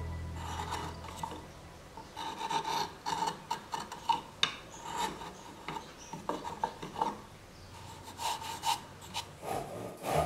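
Hand chisel paring waste wood from the inside of a dovetail socket: irregular short scraping strokes of steel on wood fibres, with a few sharper clicks as chips break away.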